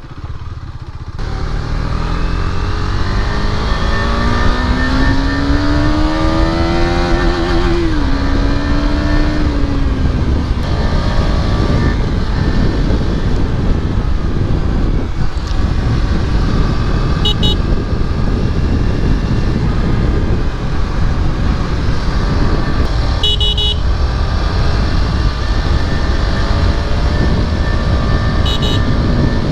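KTM Duke 250's single-cylinder engine through an Akrapovic exhaust, pulling hard with its pitch climbing, dropping at a gear shift about seven seconds in and climbing again, then running on at speed over a constant rush of road and wind noise. A vehicle horn beeps briefly three times in the second half.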